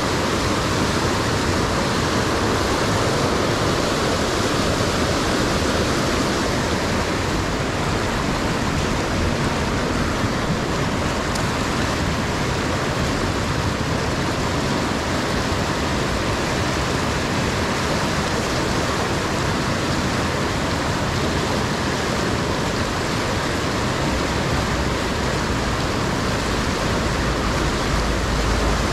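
River rapids: fast water rushing over and around boulders, a steady white-water rush. A low rumble builds near the end.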